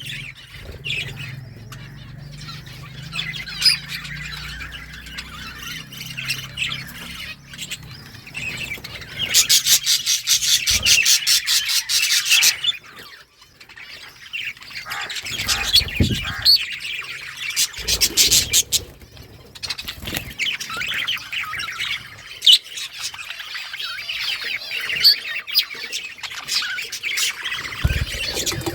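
Several pet budgerigars chirping and chattering to each other without a break, with busier, louder runs of rapid chirps around ten seconds in and again from about fifteen to nineteen seconds.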